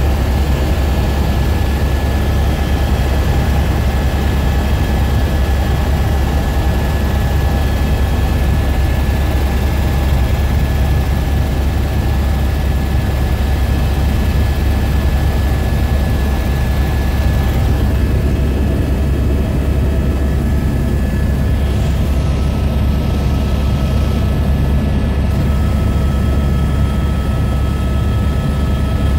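Helicopter in flight heard from inside the cabin: a loud, steady drone of rotor and engine with a deep hum underneath and a few steady whining tones. About two-thirds of the way through, the high hiss thins out and the tones shift a little.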